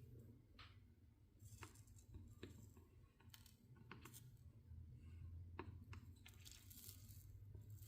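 Faint soldering of a stained glass panel: short sizzles of flux under the soldering iron and light clicks and taps of the iron and solder, over a low steady hum.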